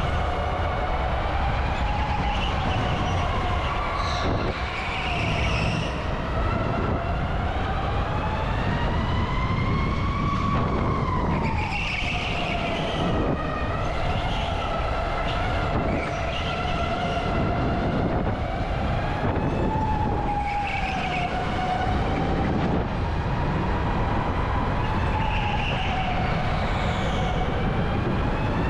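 Electric kart's motor whining as it drives a lap, the pitch rising and falling with speed through the corners over a steady rumble of road and wind noise. Brief tyre squeals come every few seconds.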